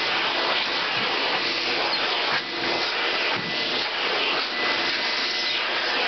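Miele canister vacuum cleaner running steadily, with a faint high whine, its hose nozzle sucking the loose hair off a dog's coat. The sound briefly drops about two and a half seconds in.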